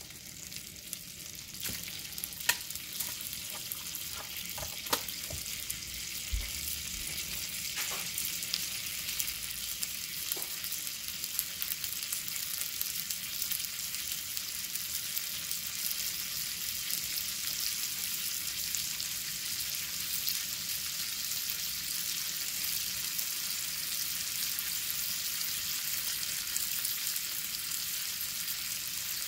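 Chopped onions frying in melted butter in a small skillet: a steady high sizzle with sharp pops and crackles in the first ten seconds. The sizzle grows a little louder as it goes.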